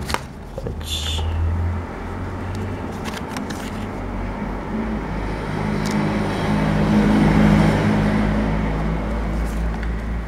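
A low engine-like hum and rumble, such as a motor vehicle running nearby, swelling to its loudest past the middle and easing off. A few small clicks and scrapes from plastic pry tools working at a phone's screen edge come through near the start.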